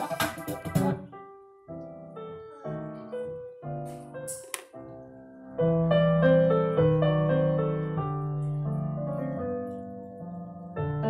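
Recorded music playing through an amplifier and loudspeaker during a sound test: a busy track cuts off about a second in, then a piano-like keyboard tune starts with sparse single notes, with a short burst of noise about four seconds in, and turns fuller and louder with chords about halfway.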